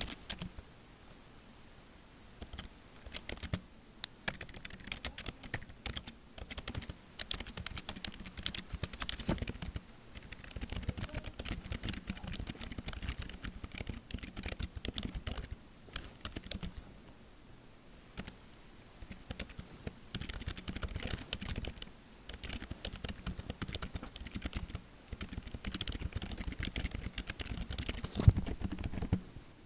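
Typing on a computer keyboard in close-up: quick runs of key clicks lasting several seconds each, with short pauses between them and a louder clatter near the end.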